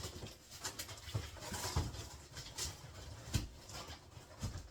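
Cardboard panels being handled and fitted together: scattered light knocks and taps with short scraping rustles.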